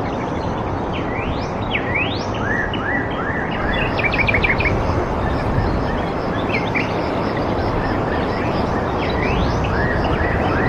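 Birds calling: quick upward-sweeping whistles, short chirps and a brief rapid run of notes about four seconds in, over a steady rushing background noise.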